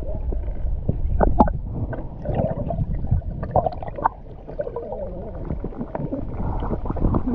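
Muffled underwater rumble and gurgling of moving water, heard through a submerged camera, with scattered small clicks and knocks.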